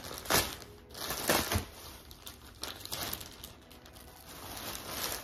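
Plastic mailer bag crinkling and crumpling as hands pull it open. The sound comes in several short rustling bursts, loudest in the first two seconds.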